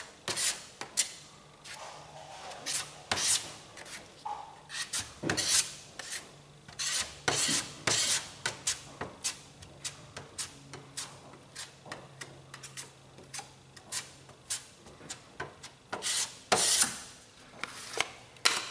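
Wide body-filler spreader scraping over a car's quarter panel: many short, irregular strokes as filler is drawn across the dips in the panel.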